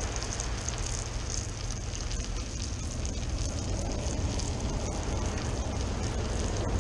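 Steady noise of ocean surf, with wind rumbling on the microphone, and a few light clicks.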